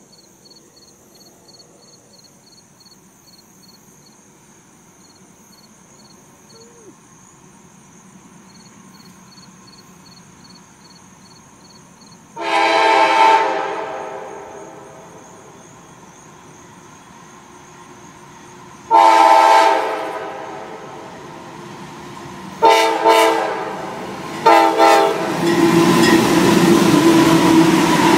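CSX freight locomotive's air horn sounding the grade-crossing signal, two long blasts, a short one and a last one, a chord of several tones. The last blast runs into the loud rumble and roar of the locomotive and autorack cars passing close by. Before the horn, faint steady insect chirping.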